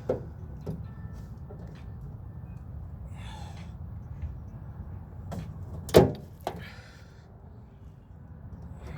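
Hand tools working on a microwave's sheet-metal casing: scattered clicks and scrapes, with one loud sharp metallic knock about six seconds in and a smaller one just after, over a steady low hum.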